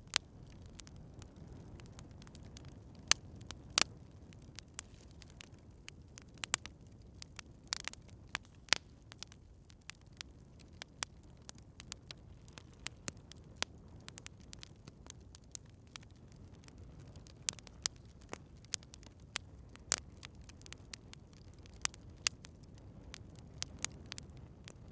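Wood campfire crackling: irregular sharp pops and snaps, some much louder than others, over a steady low background of burning.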